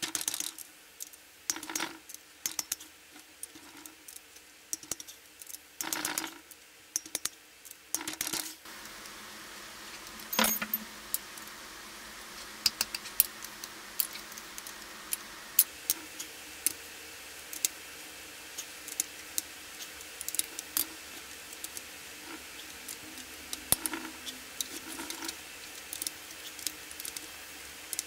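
Steel hand tools working the cylinder-head bolts of a Honda 125 twin engine: a 12 mm spanner and a socket wrench loosen the camshaft-holder bolts a quarter turn at a time. The work gives scattered short metallic clicks and clinks, with one ringing clink about ten seconds in.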